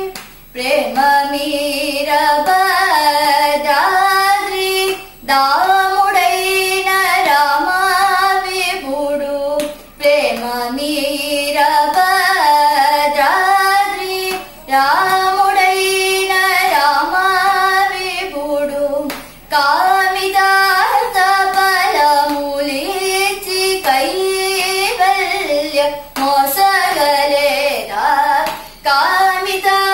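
A young woman singing a song solo, her voice rising and falling in long melodic phrases, with brief pauses for breath every few seconds.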